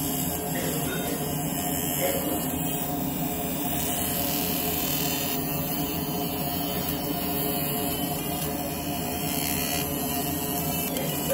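Fiber laser engraver marking a steel handcuff: a steady buzz with several held tones as the scanning mirrors sweep the beam over the same shape pass after pass.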